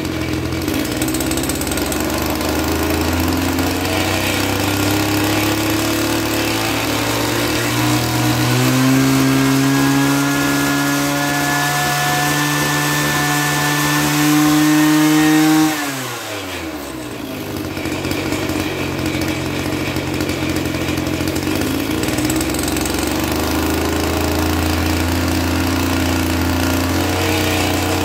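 Small brushcutter-type petrol engine of a drainage-trench digger running at idle. About eight seconds in it is revved up and held at high speed for several seconds, spinning the digging rotor, then drops back to idle.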